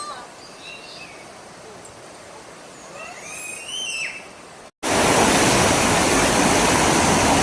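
A few short whistled bird calls over a quiet background. Then, after an abrupt cut, a loud steady rushing of flowing water, like a river or stream running over rocks.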